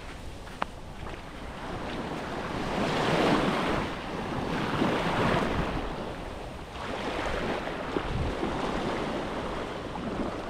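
Small waves breaking and washing up the beach in repeated swells, with wind buffeting the microphone.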